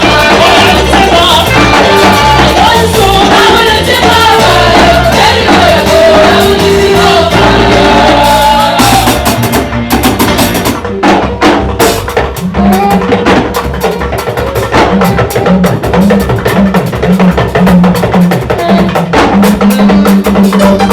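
Upbeat praise music: singing over bass and drums for about the first eight seconds, then the drums and bass carry on with sharp, quick drum hits.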